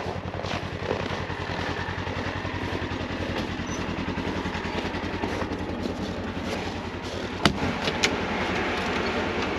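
Side-by-side UTV engine idling steadily, already warmed up. Two sharp clicks near the end as the cab door latch is worked and the door opens.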